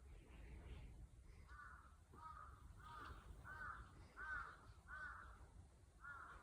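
Crow cawing faintly: a run of about seven short caws at an even pace, starting about a second and a half in, over a low background rumble.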